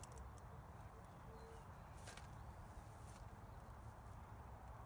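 Near silence: faint outdoor background with a steady low rumble and a few soft clicks.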